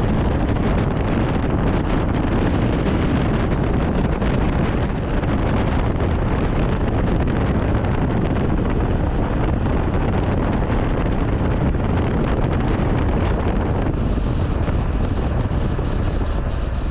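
Wind rushing over the microphone while riding a Honda CB500X, with the motorcycle's engine running underneath. A steady, unbroken rush.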